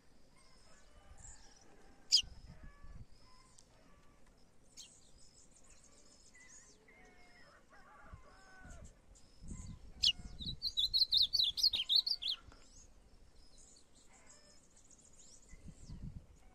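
Small songbirds calling: short chirps throughout, a thin high note repeating about once a second, and a fast run of twittering notes about ten seconds in that lasts two seconds.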